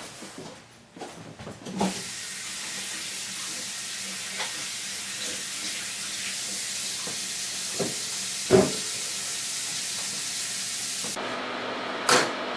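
Tap water running steadily into a kitchen sink, starting about two seconds in after a clunk, with a couple of knocks partway through. Near the end the running water cuts off abruptly, giving way to a steady hum and a single click.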